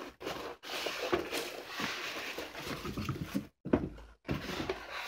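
A heavy UPS unit in a plastic bag being worked out of its cardboard box: cardboard scraping and plastic wrapping rustling, broken by a few abrupt short gaps.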